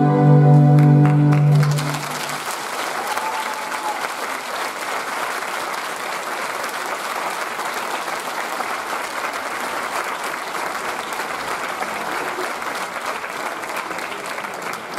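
A held musical chord ends about two seconds in, and an audience then applauds steadily.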